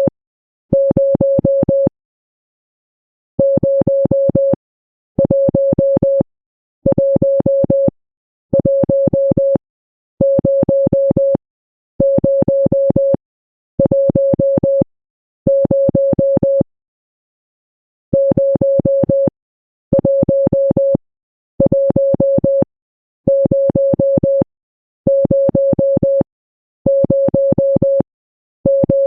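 Morse code sent as a single mid-pitched electronic beep keyed on and off: a long string of even beeps about a second each with short gaps, broken by two longer pauses, one about two seconds in and one about two-thirds of the way through.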